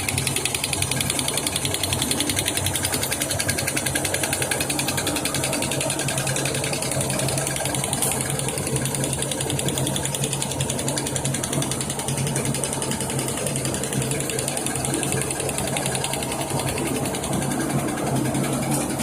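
Drinking-straw extrusion machine running steadily: a constant motor hum with a fast, even mechanical rattle.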